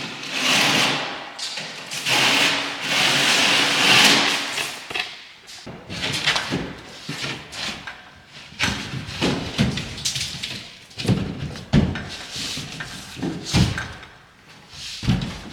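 Building work on drywall: scraping and rasping for the first few seconds, then a run of separate knocks and thuds.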